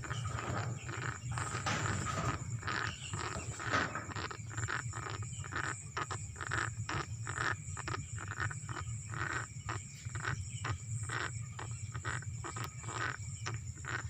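Chickens sick with chronic respiratory disease (CRD) making short snoring, clicking sounds as they breathe, many in quick succession: the 'ngorok' snore typical of the disease. A steady low hum runs underneath.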